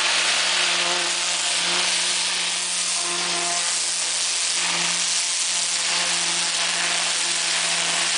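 High-pressure water jet from a hydro-jetting lance hissing steadily against a fibreglass boat hull, over the constant low hum of the pressure-washing machine.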